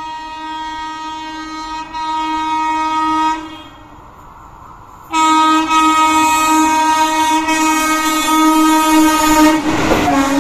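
Horn of an approaching Indian Railways WAP-4 electric locomotive hauling an express, sounded in two long steady blasts with a short break between. Near the end the rushing noise of the train going past at speed comes in, and the horn drops in pitch as the locomotive passes.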